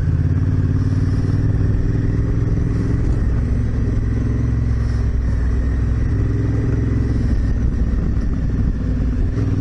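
Honda Africa Twin CRF1000L's parallel-twin engine running steadily under way on a dirt track.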